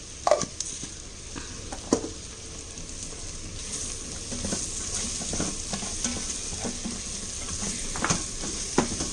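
Onions and capsicum frying with spices in butter and oil, sizzling steadily while a spatula stirs them, knocking against the pot a few times.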